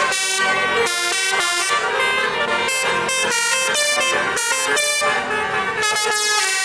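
Bus 'telolet' horn, a set of multi-tone air horns, playing a quick tune of short changing notes.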